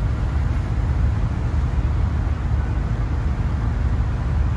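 Steady low rumble and rushing noise from the open deck of a Nankai Ferry ship under way, the ship's running mixed with wind buffeting the microphone.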